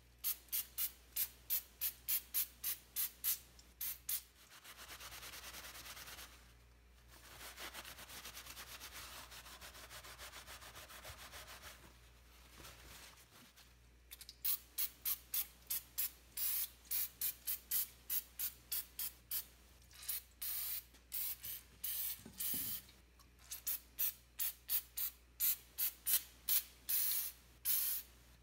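Aerosol solvent cleaner sprayed in quick short bursts, about three hisses a second, with two longer steady sprays in the middle, washing oil off clutch parts.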